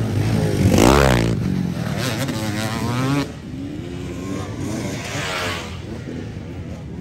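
Dirt bike engine revving hard in bursts. The loudest rev comes about a second in, another follows around two to three seconds, the level drops just after three seconds, and a further rev comes around five seconds.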